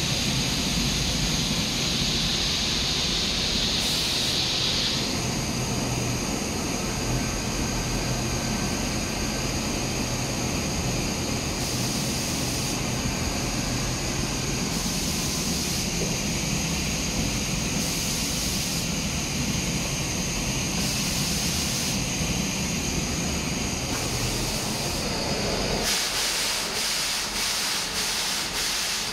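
Gema powder-coating booth during a colour change: the extraction runs with a steady rushing hiss, and compressed-air purge blasts of about a second come roughly every three seconds. Near the end there is a fast run of short air pulses.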